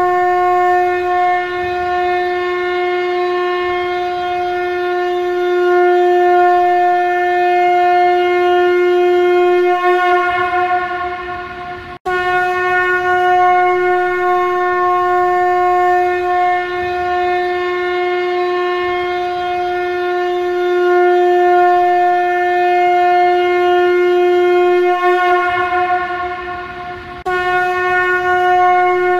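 Shankha conch shell blown as a trumpet in long, steady blasts on one pitch, rich in overtones. Each blast wavers and fades as the breath runs out, and the next starts at once, about twelve seconds in and again near the end.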